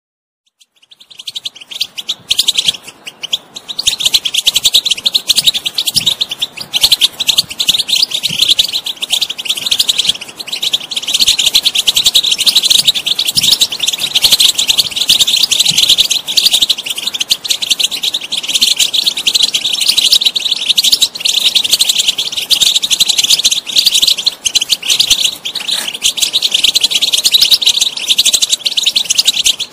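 European goldfinch singing a rapid, unbroken twittering song of high chirps and trills, starting about a second in.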